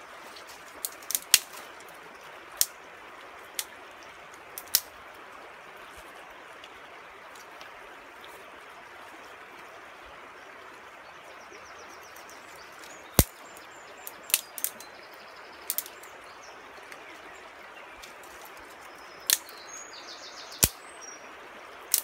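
Steady rush of river water, broken by about a dozen sharp cracks at irregular intervals and a few faint bird chirps.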